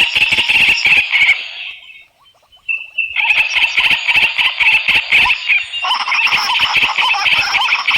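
A dense chorus of many small animals calling at once: rapid overlapping chirps and clicks. It cuts out almost completely for about a second, around two seconds in, then resumes.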